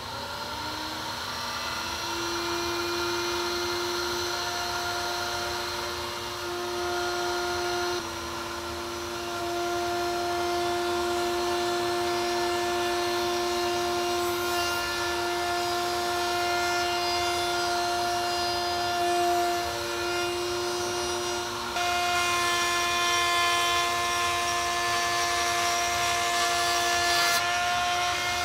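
Table-mounted router spinning up to speed with a rising whine, then running steadily while its bit cuts red oak as the board is pushed through. The tone and loudness shift a couple of times as the cut changes.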